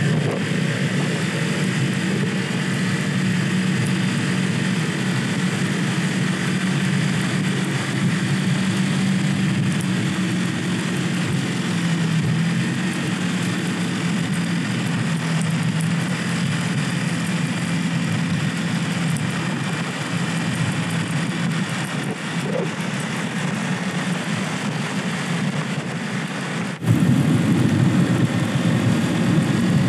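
50cc moped engine running steadily at cruising speed, heard from on the bike with a steady rushing noise of wind and road. The sound jumps suddenly louder near the end.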